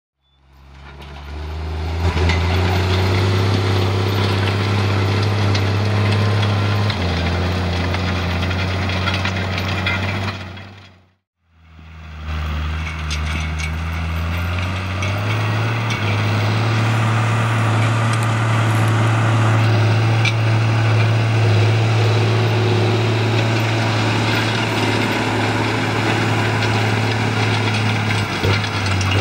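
John Deere tractor's diesel engine running steadily under load while it pulls a disc ridger through dry soil, with a broad rushing noise over the engine hum. The sound fades out briefly a little over a third of the way in, then returns with the engine note a step higher.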